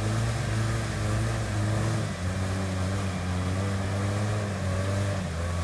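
Enwix ATV engine running hard under load while its big low-pressure tyres spin in a muddy, flooded ditch, churning mud and water; the vehicle is stuck. The engine note dips briefly about two seconds in and shifts again near the end.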